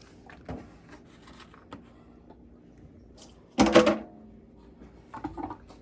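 Cheese press and its water-jug weights being taken apart by hand: light knocks and clunks, with one loud, short clatter about three and a half seconds in.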